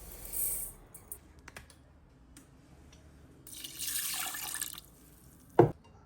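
Kitchen tap running into a sink in two short spurts, with a few light clicks between them, then a single sharp thump near the end.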